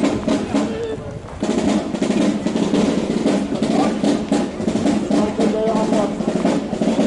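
A procession band's snare and bass drums playing a sustained roll and beat. The drumming dips briefly about a second in, then carries on.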